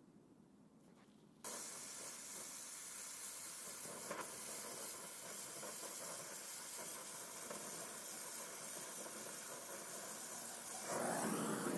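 Oxy-fuel gas welding torch hissing steadily as it fusion-welds aluminium panels with filler rod. The hiss starts about a second and a half in, after a short quiet, and grows louder near the end.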